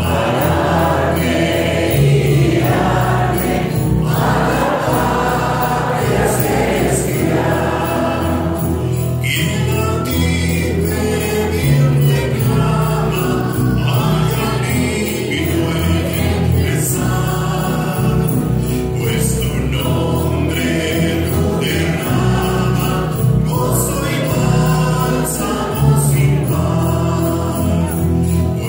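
A choir singing a sacred song, with a steady sustained instrumental bass beneath the voices.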